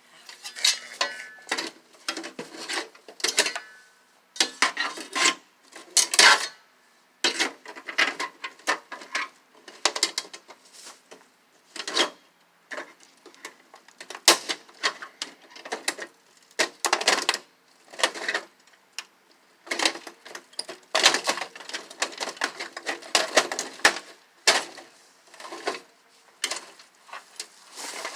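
Metal clanking and scraping in irregular bursts, sometimes several a second, from an old rusty microwave's sheet-metal casing and parts being taken apart.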